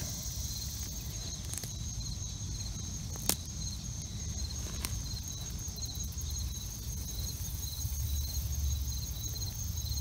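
Insects chirping: a steady high-pitched buzz with short chirps repeating about once a second, over a low rumble, with a single sharp click about three seconds in.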